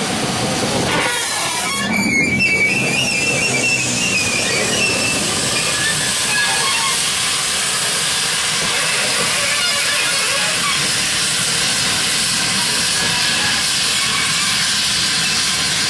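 Great Western Railway 1400 class 0-4-2 tank engine No.1450 steaming past at low speed, with a loud, steady hiss of steam. A high tone sounds for a few seconds about two seconds in.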